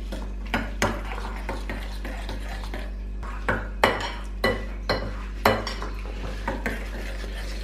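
Utensil clinking against a bowl while stirring pancake batter, in irregular taps about once or twice a second, over a steady low hum.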